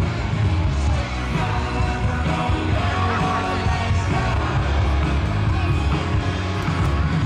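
Rock music with a singer over a heavy, steady bass.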